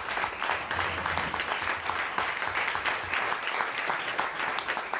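Steady applause: many people clapping their hands together at once, the audience joined by the cast on stage.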